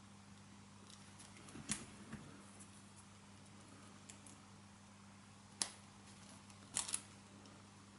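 A few short, sharp clicks and taps of a motorcycle fuel injector's small parts being handled and pushed together, over a faint steady low hum.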